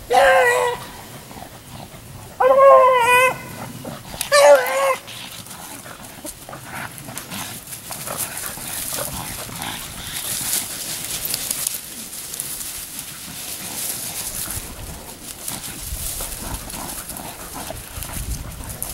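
Beagle baying on a cottontail rabbit's scent: three drawn-out bawls in the first five seconds, then only low background noise while the hounds work the line.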